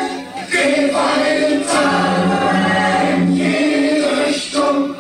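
Choir-like music of sustained held chords, several voices or tones sounding together, moving to a new chord every second or two with short breaks between. Recorded through a cassette walkman's built-in microphone.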